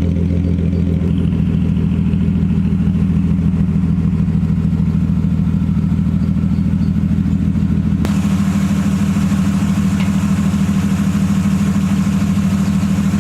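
Car engine running steadily with a fast, even pulse; about eight seconds in its note steps up higher and brighter, as if held at higher revs.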